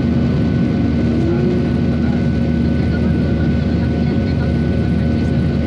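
Airliner's engines running with a loud, steady drone and an even hum, without any change in pitch or level.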